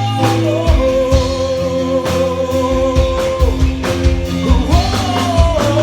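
A live band playing with drum kit and guitar between sung lines. A long held melody note runs through the first half, and a sliding melodic phrase comes near the end.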